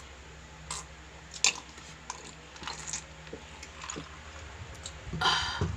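Close-up mukbang eating sounds: chewing and biting with scattered short crisp clicks and smacks. A louder, short hissing slurp-like sound comes near the end.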